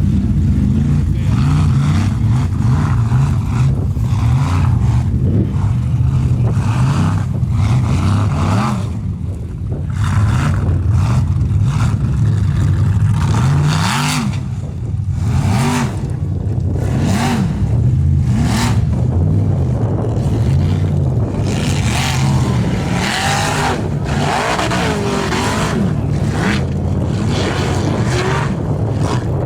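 Formula Offroad race buggy's engine revving hard, its pitch rising and falling again and again as the throttle is worked, with short bursts of spray or tyre noise in the middle.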